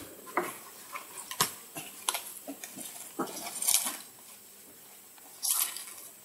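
Irregular light knocks and clicks with short scraping rustles, one burst of rustling a little past halfway and another near the end.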